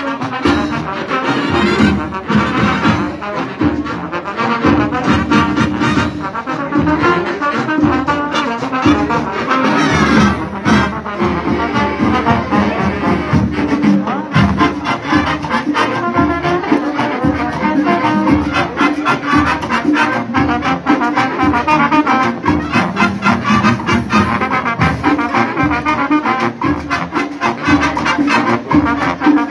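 Marching band playing: a brass section of trumpets and trombones over a steady, driving beat.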